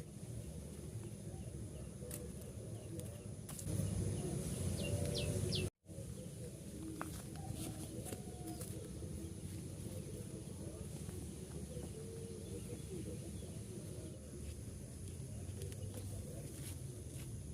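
Outdoor rural ambience: a steady low background noise with a few faint bird chirps. About four seconds in, a louder stretch of noise cuts off into a brief moment of complete silence.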